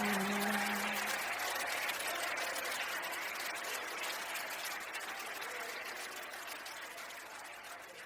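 Audience applause fading out slowly after a song ends. The singer's last held note dies away about a second in.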